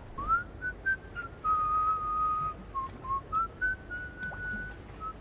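A person whistling a slow tune: a short slide up at the start, then a few long held notes with brief dips and slides between them.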